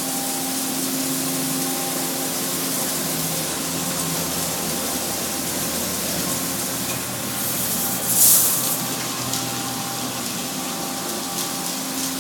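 Car wash water pumps running with a steady hum under a continuous hiss of water spray, with a sudden louder blast of hissing spray about eight seconds in.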